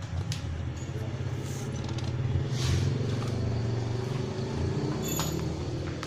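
A motor vehicle engine running, swelling louder about halfway through and then easing off, with a few sharp metallic clicks and a brief clink near the end.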